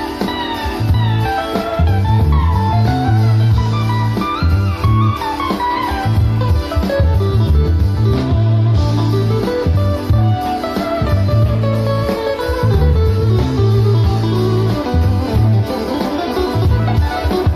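Live recording of a jazz-fusion band playing: a lead line with pitch bends and slides over a pulsing bass line.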